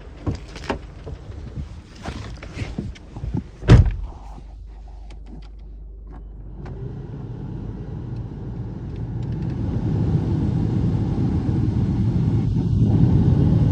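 A few sharp clunks, the loudest about four seconds in, then the Fiat Bravo's 1.4 T-Jet engine running steadily and growing louder.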